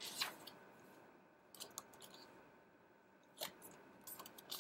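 Pages of a paper photo book being flipped by hand: a few short, soft paper flicks and rustles, the clearest just after the start and about three and a half seconds in.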